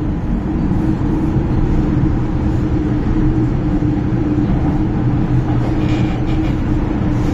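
MTR M-Train electric multiple unit running, heard inside the carriage by the doors: a steady rumble of wheels on rail with an even hum.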